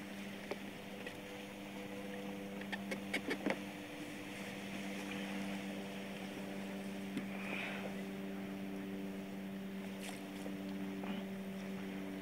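A steady low hum, engine-like, over faint water noise, with a quick run of sharp clicks and knocks about three seconds in as a landing net and fishing rod are handled on a kayak.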